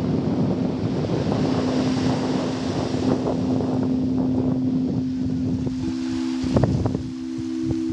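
Sound-bath singing bowls holding a steady low tone, with a second, higher tone joining about six seconds in. Wind buffets the microphone over the surf, and a few knocks come about six and a half seconds in.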